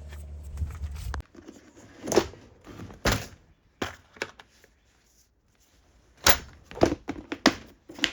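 Scattered sharp knocks and clicks of small metal parts and hand tools being handled while a carburettor's inline fuel filter is swapped. About eight separate knocks come with gaps between them, after a steady low hum that cuts off suddenly about a second in.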